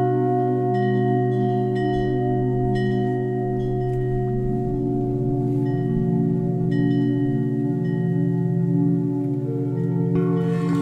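Deep bell tones ringing with a long, steady hum and light chime notes above it; a fresh strike rings out near the end.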